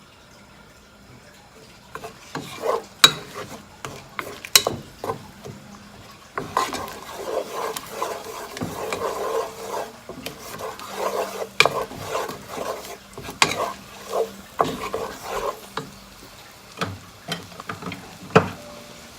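Utensil stirring and scraping garlic butter around a pan, with sharp clicks against the pan. The steady scraping starts about six seconds in and gives way to a few knocks near the end.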